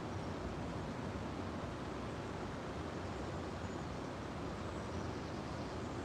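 River Usk flowing over its shallow stony bed: a steady rush of water, heaviest in a low rumble.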